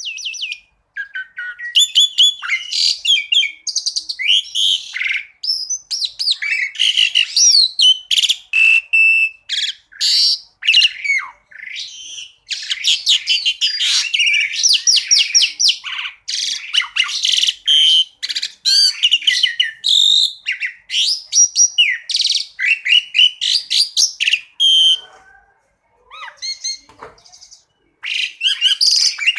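Asian pied starling (jalak suren) singing a fast, varied song of whistles, trills and sharp chattering notes, with a quieter lull about 25 seconds in.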